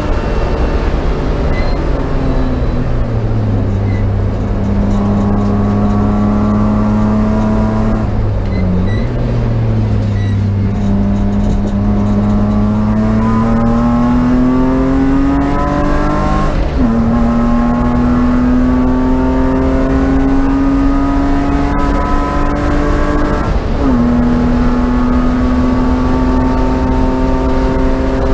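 BMW race car engine at racing speed. Its pitch falls as the car slows, dips briefly, then climbs steadily under acceleration. There are two upshifts in the second half, each a sudden drop in pitch followed by another climb.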